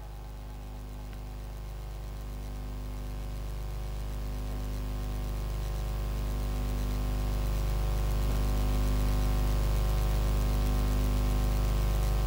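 A steady low hum with several even tones stacked above it, growing gradually louder; one of the tones swells and fades about every two seconds.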